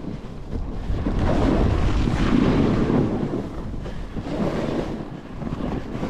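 Wind buffeting the microphone of a snowboarder's camera while riding down through soft snow, along with the snowboard sliding over the snow. The rush swells about a second in and again near the end.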